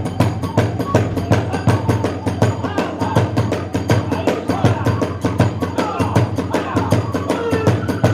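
Kagura hayashi ensemble playing a fast, driving passage: drums and clashing hand cymbals strike several times a second in an even rhythm, with a bamboo flute line above.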